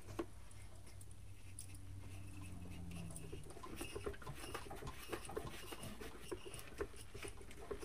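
Faint scratching and small irregular clicks of a small wooden piece being twisted by hand onto a screw atop a ceramic plate.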